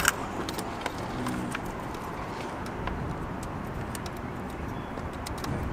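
Scattered light clicks and taps of plastic wiring-harness connectors and wires being handled, over steady background noise.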